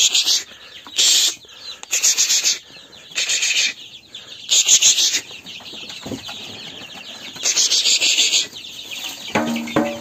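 Young chickens peeping in loud, high-pitched bursts about once a second, with a lower clucking call near the end.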